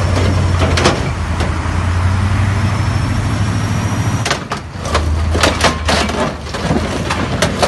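Mobile crane truck's engine running hard as the truck pushes against the trees it is wedged between. From about four seconds in, a series of sharp cracks and crunches of wood and metal.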